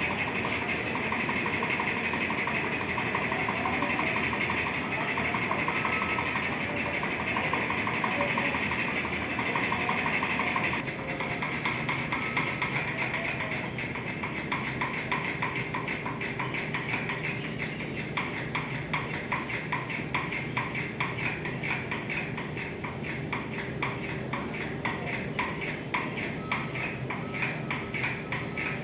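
Ceiling fan running with a fast, rhythmic squeaking and rattling noise that repeats with each turn; it drops a little in level about a third of the way in and the pulses become more distinct.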